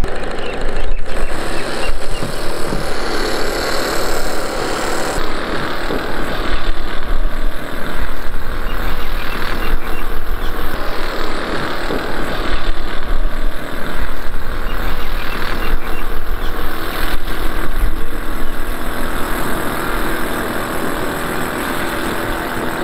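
Radio-controlled steam speed boat running at speed on the water, its big burner and steam plant making a loud, steady rushing noise.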